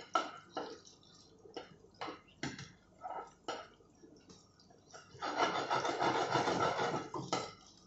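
A steel ladle scrapes and taps against a frying pan as garlic and red chilli fry in oil for a tadka. About five seconds in, a loud rushing hiss rises from the stove over the gas burner turned up to full, lasting about two seconds.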